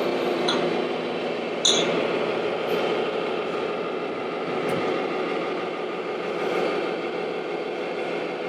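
Steady engine-like running and idling from radio-controlled model trucks, mixed with the hum of the indoor hall. A single short knock about two seconds in.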